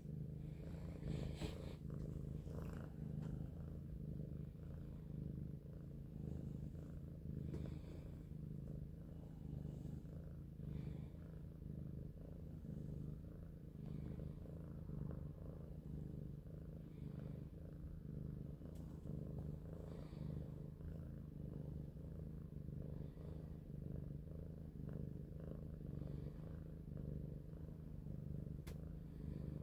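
Domestic cat purring steadily and close up, a low rumble that swells and eases in a regular rhythm.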